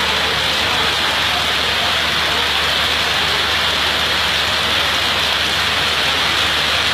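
Heavy rain on a railway platform shed's roof, with water pouring through holes in the roof and splashing down: a steady, loud rush.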